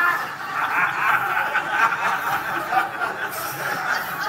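Congregation laughing: many people chuckling together at once.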